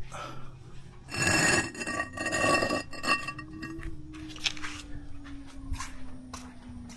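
Bricks being lifted and knocked together, two loud clattering, clinking bursts with a ringing edge about a second and two and a half seconds in, followed by a few lighter knocks.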